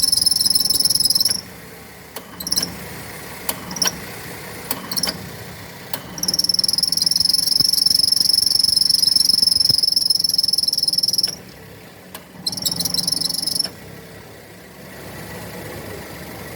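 A car's AC compressor drive belt slipping under the compressor's load at idle, giving a loud high-pitched squeal. The squeal cuts in and out, with a few short chirps between longer stretches, and stops about two seconds before the end, leaving the engine idling; the slip is being treated with a wetted bar of laundry soap rubbed on the belt.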